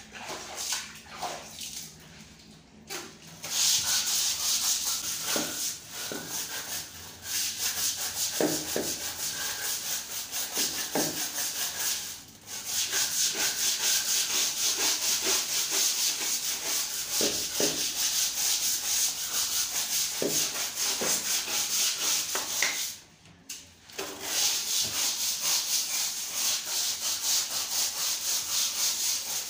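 Hand scrubbing brush scrubbed hard over ceramic floor tiles in rapid back-and-forth strokes, stopping briefly twice.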